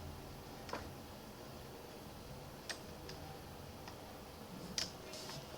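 About five faint, scattered clicks from someone working at a computer, over a low steady hum.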